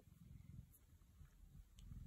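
Near silence: quiet room tone with a faint low rumble and a couple of tiny ticks.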